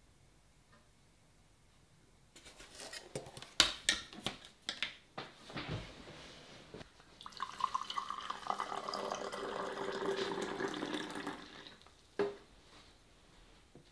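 Water poured in a stream into a ceramic mug for about four seconds, starting about halfway in. Before it come a few seconds of knocks and clinks, and there is one more knock near the end.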